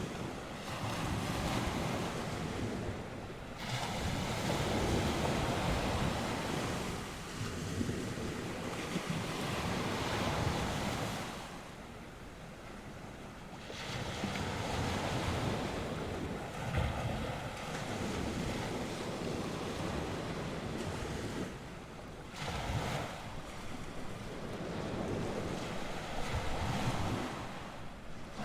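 North Sea waves breaking and washing on the shore, swelling and easing every few seconds, with wind blowing across the microphone.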